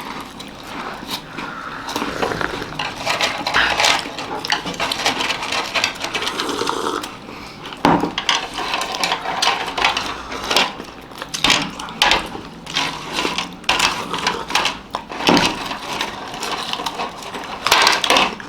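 Chopsticks clicking and tapping against glasses and biscuits during eating, many irregular sharp clicks with short scraping and crunching noises between them.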